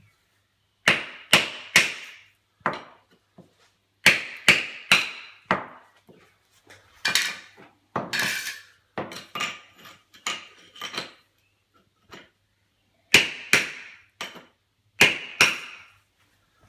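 Hammer and chisel striking slate floor tiles to knock off raised edges (lippage): sharp knocks in groups of two to four, with short pauses between the groups.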